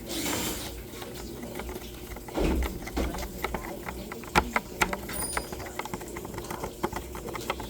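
Rapid, irregular clicking and light clatter from hands and a screwdriver working on the washing machine's parts, with a thump about two and a half seconds in.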